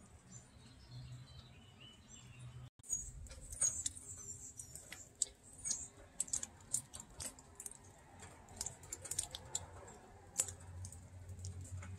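Raindrops dripping onto wet leaves and ground, heard as irregular sharp ticks and pats that begin after about three seconds of faint quiet.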